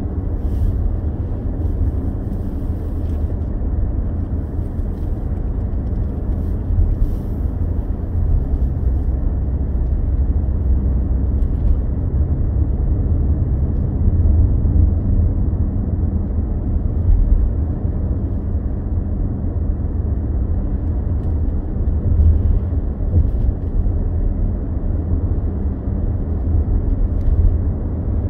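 A car driving along a road: a steady, low rumble of road and engine noise.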